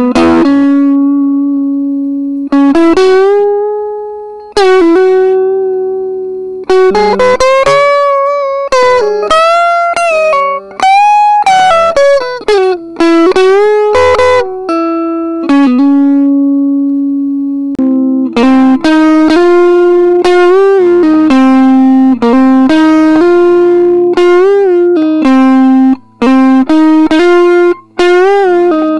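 Electric guitar, a Stratocaster-style guitar built from a Solomusic STK-1 kit, played through an amplifier: a melodic lead line of long held notes with string bends and vibrato, the notes coming faster in the second half.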